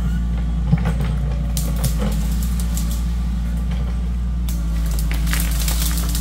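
Compact crawler excavator's diesel engine running steadily, with scattered scrapes and knocks as the bucket works the soil.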